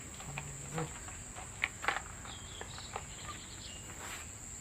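Steady high-pitched insect trilling, typical of crickets, with a few sharp clicks about two seconds in and some brief high chirps after them.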